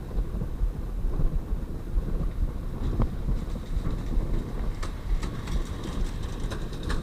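Steady low rumble of wind and road noise on a moving bike-mounted microphone, with a few sharp clicks about three seconds in and near the end.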